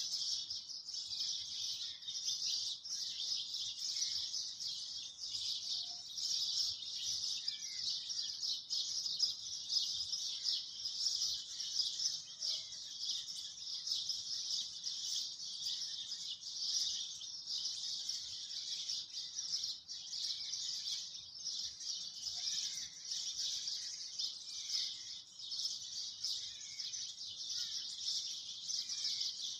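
Nature ambience: a steady high-pitched drone with scattered small bird chirps throughout.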